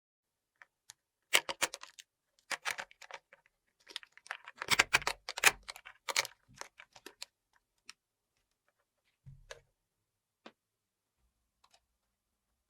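Small plastic toy pieces being handled and set down: quick clusters of clicks and rattles for several seconds, then a few scattered single taps.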